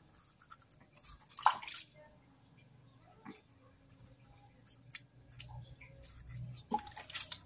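Faint water drips and small splashes as a kitten is washed by hand. There is a brief louder splash about a second and a half in and another near the end.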